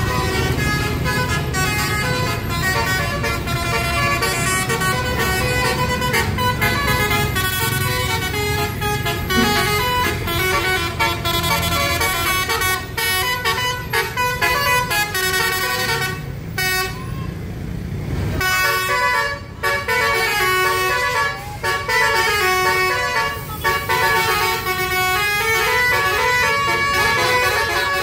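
Bus telolet horns (Basuri multi-tone musical horns) playing quick stepped melodies, one tune after another, over the low running of a coach's engine. The tunes break off briefly about two-thirds of the way through.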